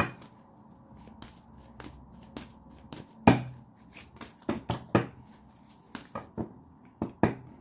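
Tarot cards being handled on a table: a scattered run of light clicks and taps, with one sharper knock a little over three seconds in.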